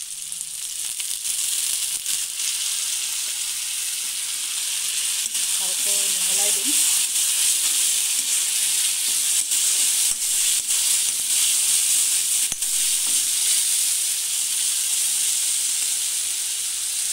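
Spice masala and whisked curd frying in hot oil in a wok: a steady sizzle that grows louder over the first couple of seconds, with scattered clicks of the spatula scraping and knocking against the pan.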